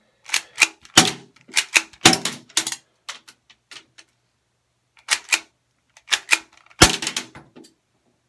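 A BB gun being cocked and fired at close range: a quick run of sharp clicks and snaps, a pause, then more, the loudest crack about seven seconds in.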